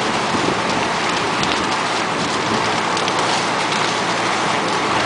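Fire hose stream spraying water onto a burning house: a steady rushing hiss with a few faint crackles.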